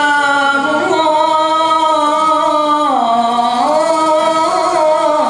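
Solo male voice singing a slow, unaccompanied nasyid opening line into a microphone, holding long, ornamented notes. The pitch dips about three seconds in and rises again.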